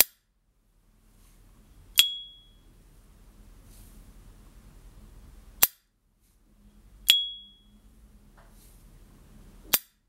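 S.T. Dupont Gatsby lighter lid flipped open twice, each time giving the brand's high, clear 'cling' ping that rings briefly. Between the pings come sharp clicks as the lid snaps shut. The clean ring marks a healthy lid hinge and spring.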